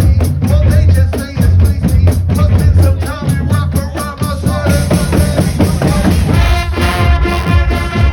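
Music driven by a drum kit with a heavy, booming bass drum, playing a fast even beat. About six seconds in the beat drops away and held tones of the backing music carry on alone.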